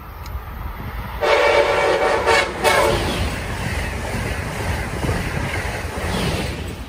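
Train horn sounding a chord of several steady tones for about a second and a half, broken briefly near its end, over the rumble and rattle of a passing train that eases near the end.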